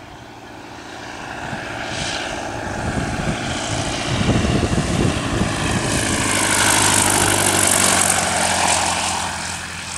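Propeller-driven light aircraft's piston engine running as it flies in low to land and passes close by, growing steadily louder to a peak about seven to eight seconds in, then starting to fade.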